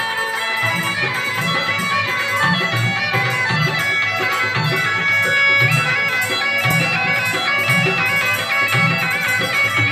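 Been (pungi), the gourd-and-double-reed snake-charmer's pipe, playing a folk tune: a continuous reedy melody over its steady drone, with a low pulsing beat underneath.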